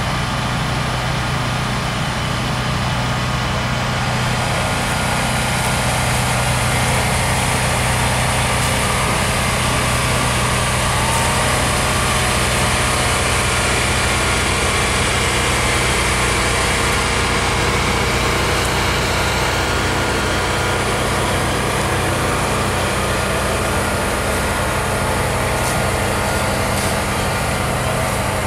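Freight train of boxcars rolling slowly past, a steady rumble of wheels on the rails under a constant diesel engine hum.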